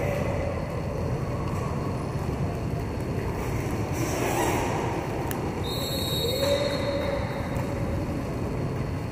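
Quad roller skate wheels rolling on the rink floor during roller hockey play: a steady rumble, with a few sharp clicks of sticks on the ball.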